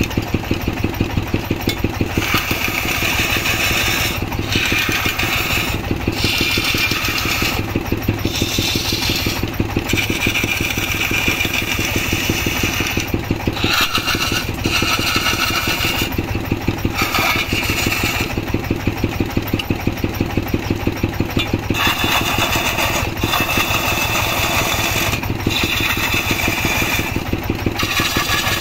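A manual wood lathe runs with a steady, fast-pulsing low drone, and a hand-held turning chisel scrapes and shaves the spinning wooden vase blank. The cutting hiss comes and goes in passes of a second or a few seconds as the tool is worked along the blank.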